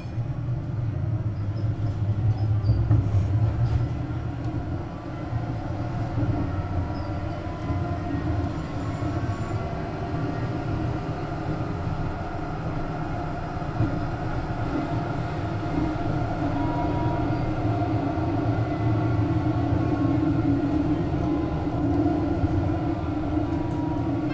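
Duewag M6D tram running, a steady low hum with a whine whose pitch slowly shifts. It gets louder right at the start.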